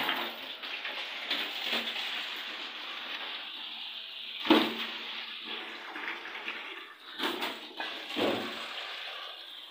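Kitchen tap turned on and running hard into a steel bowl as carrots are rubbed clean under the stream. A few knocks of carrots and hands against the bowl sound over the rushing water; the loudest comes about halfway through.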